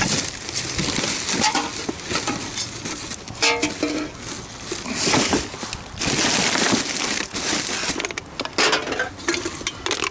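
Black plastic garbage bags rustling and crinkling as gloved hands dig through them, with sharp crackles of the plastic.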